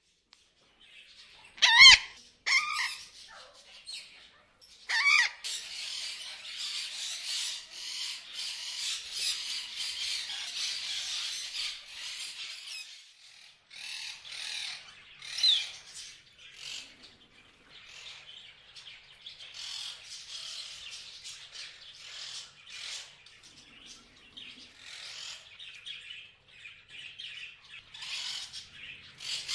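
Parrots chirping and chattering without pause, with a few loud wavering squawks about two and five seconds in.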